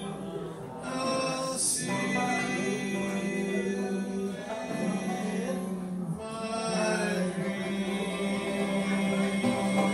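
Live old-time band music: a banjo being played while voices sing along.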